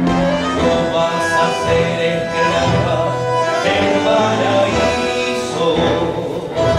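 Live tango orchestra of bandoneons and piano playing, with a male singer singing into a microphone.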